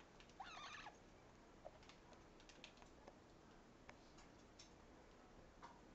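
Blue-fronted Amazon parrot gives one short, wavering call about half a second in, followed by a few faint scattered clicks.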